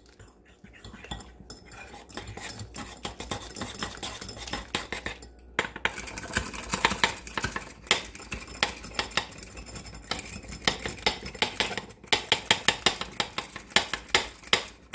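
Small metal wire whisk beating egg batter in a ceramic bowl: quick, rhythmic clicking and scraping of the wires against the bowl. It pauses briefly about five and a half seconds in and again about twelve seconds in, and the strokes are loudest near the end.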